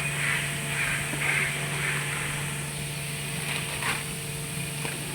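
A machine hums steadily, with short bursts of hiss in the first couple of seconds and a few sharp clicks later on.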